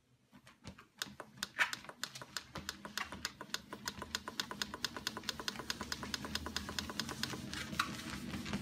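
Dog's claws clicking on the belt of a running dogPACER dog treadmill, sparse at first and then a quick even rhythm of several clicks a second as the dog walks, over the low hum of the treadmill motor.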